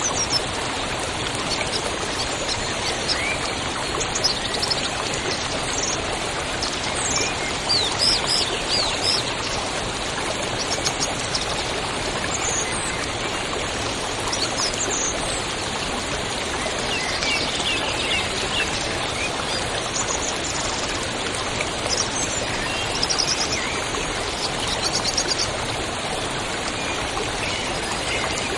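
River water rushing steadily, with various songbirds chirping and trilling over it in short phrases throughout.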